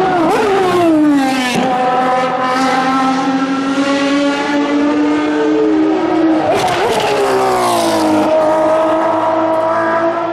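Ferrari V12 track cars running at high revs, a high-pitched engine note with many overtones. The pitch drops sharply as a car goes by about a second in, and again around seven seconds in, with a rush of noise at each pass.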